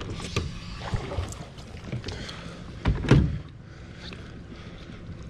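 Bow-mounted electric trolling motor being raised and stowed on its mount: a few light knocks and rattles of the shaft and bracket, then one heavy clunk about three seconds in.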